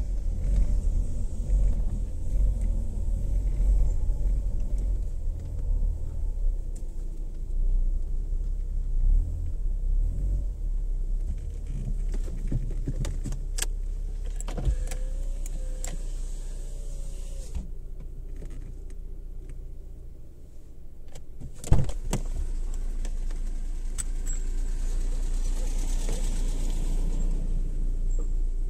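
Car cabin sound as the car is turned around at low speed: a low, uneven engine and road rumble. It settles into a steadier hum, and a single sharp knock comes about three-quarters of the way through.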